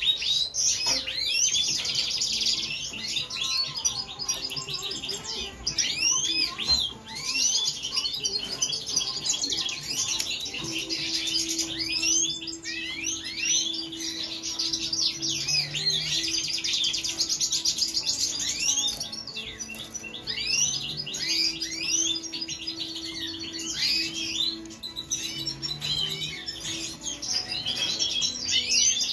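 European goldfinches singing and twittering, a continuous run of quick, high overlapping chirps and trills.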